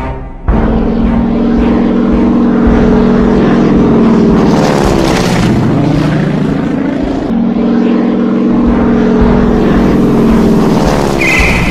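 Small propeller plane's engine running loud and steady, its pitch bending as it passes, about five seconds in and again near the end.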